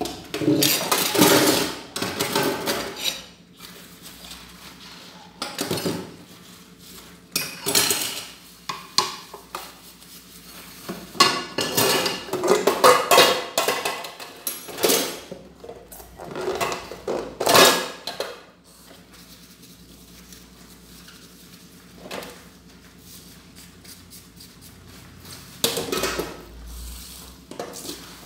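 Dishes, metal pots and cutlery clattering and clinking as they are washed by hand at a kitchen sink and stacked in a dish rack. The clatter comes in irregular bursts, busy for the first two-thirds, then only a few quieter knocks near the end.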